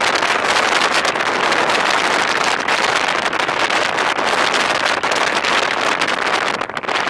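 Steady wind and road noise on the microphone of a camera riding on a moving car, briefly dipping near the end.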